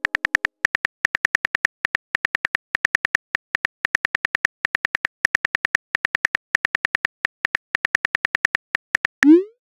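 Simulated phone-keyboard tap clicks as a text message is typed, in quick bursts of several sharp clicks a second. Near the end a short rising whoosh sounds as the message is sent.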